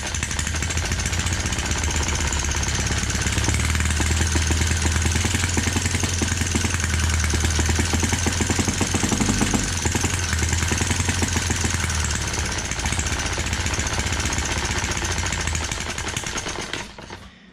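Home-built Webster model single-cylinder four-stroke engine running on the bench, a fast steady firing rhythm that dies away near the end. Its carburettor still needs a lot of tuning.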